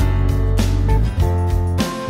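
Background music: a track with guitar over a strong bass line.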